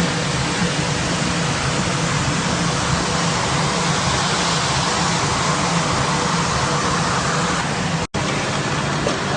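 Carpet washing machine running: a loud, steady rushing noise over a low motor hum. It cuts out for an instant about eight seconds in.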